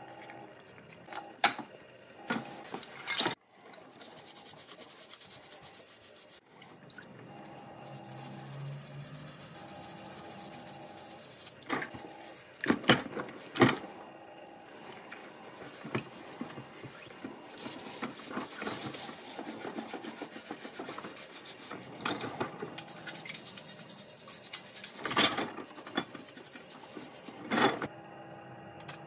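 Gloved hands rubbing and scrubbing small model car parts in a tub of cleaning liquid, with a steady rasping hiss and frequent sharp clicks and knocks as the parts are handled.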